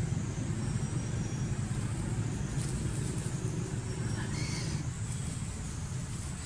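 Steady low rumble of outdoor background noise, with a brief faint high-pitched chirp about four seconds in.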